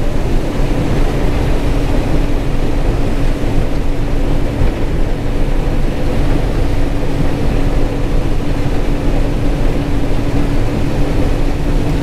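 John Deere 9400 Maximizer combine running under load while shelling corn, heard from inside the cab: a steady drone with a constant hum over a dense low rumble. The operator takes heavy rumbling like this as the sign of good corn going through the machine.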